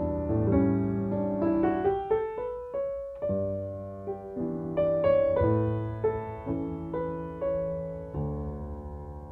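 Background piano music: soft, slow notes and chords, each struck and then fading.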